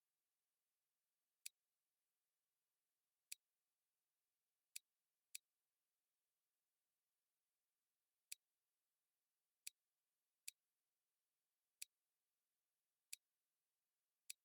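Ten short, sharp clicks at irregular intervals, about one to three seconds apart, over near silence.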